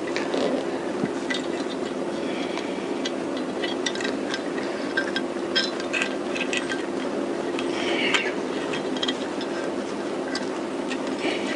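Light metallic clinks and rattles, scattered throughout, as a bare Honda CBR1000F crankshaft with its connecting rods and chain is handled and turned by hand, with a brief scrape about eight seconds in. A steady low hum runs underneath.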